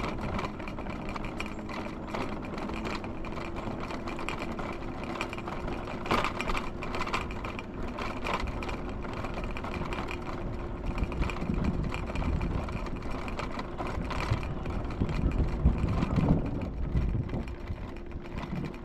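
Electric mobility scooter running: a steady motor whine with the rumble of its wheels over the ground and scattered rattles.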